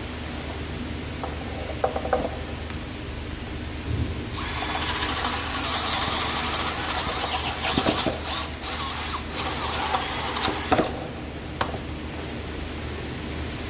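Cordless drill with a spade bit boring into pine boards. It runs for about six seconds, starting about four seconds in, rising and falling as the bit cuts. Before it come a few light handling clicks and a thump.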